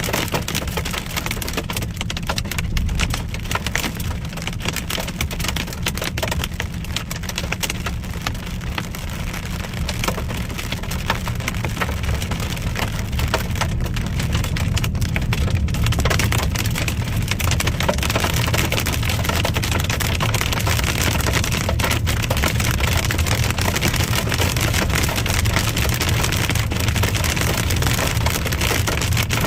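Hail and rain hitting a car's roof and windshield as a dense, rapid patter, heard from inside the moving car over a low road and engine rumble. It grows heavier from about halfway through.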